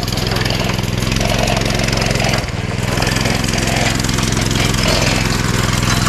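A small engine running steadily with a low, even hum, dipping briefly about two and a half seconds in.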